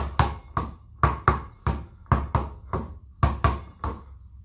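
Basketball dribbled hard and low on the floor by a seated player, the quick bounces coming roughly three a second in a two-bounces-then-switch rhythm as the ball is passed under the legs.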